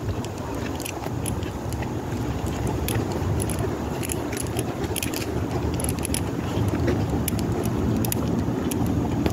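Low steady street rumble with irregular light metallic clicks and jingles throughout, from the dog's leash and collar as it is walked.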